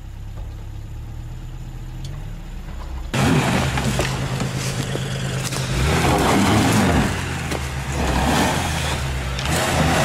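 Off-road 4x4's engine running low, then from about three seconds in revving hard and labouring as the vehicle churns through a muddy stream, with a loud rush of noise over the engine that swells and dips.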